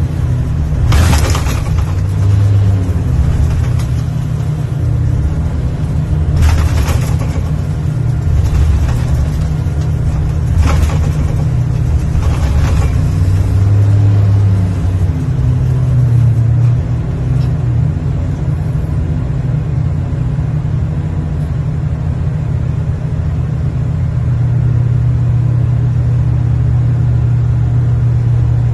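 Heavy working machine's engine running under load, heard from inside the operator's cab: a steady low drone whose pitch steps up and down as the machine works, with a few short bursts of hiss or clatter in the first half.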